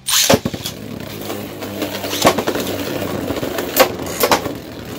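Two Beyblade Burst tops, one a heavy Guilty Longinus Charge Metal Dash combo, spinning in a plastic stadium with a steady whir, clashing with sharp clacks several times.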